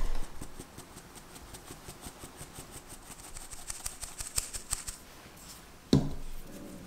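A stainless steel mesh sieve is tapped and shaken over a glass bowl, sifting a dry flour-and-cocoa mix, with a run of rapid light ticking and rustling. There is a knock at the start and a louder knock about six seconds in.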